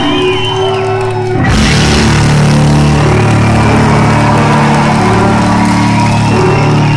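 Live rock band with heavy distorted electric guitar, recorded loud and distorted from the audience. Sustained notes hang briefly before the full band crashes back in about a second and a half in.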